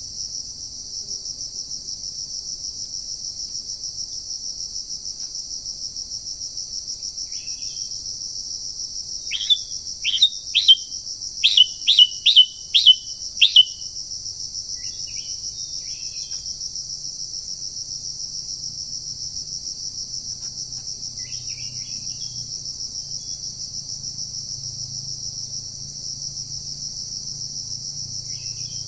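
Steady, high-pitched insect drone of crickets or cicadas. About nine seconds in, a bird gives a run of about eight loud, sharp notes over some four seconds, each sliding down in pitch. A few faint chirps come at other moments.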